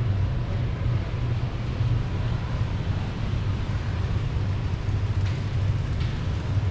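Steady low rumble with a faint hiss, and a couple of faint clicks near the end.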